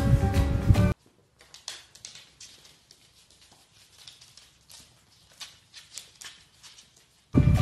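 Faint, irregular clicking and tapping of dog claws and paws on a wooden floor as beagle puppies scramble and play around an adult beagle. Loud background music stops about a second in and starts again near the end.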